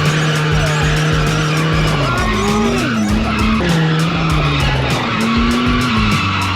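Drift car's engine held high in the revs and then dropping and rising again, with tyres skidding, mixed with music that has a steady fast beat.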